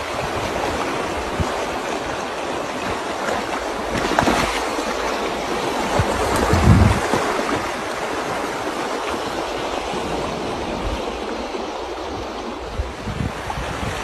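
Floodwater rushing and churning steadily through a channel cut in desert sand, with a couple of brief low gusts of wind on the microphone.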